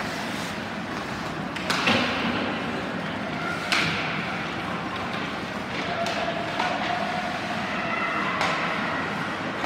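Ice hockey rink ambience, a steady hum of arena and crowd noise, broken by a few sharp knocks from play on the ice, the loudest about two and four seconds in.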